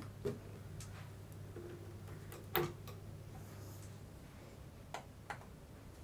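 A few sharp, separate clicks from hands on a QNAP TVS-472XT NAS's front drive bays, the loudest about two and a half seconds in, over a faint low hum that fades out after about four seconds.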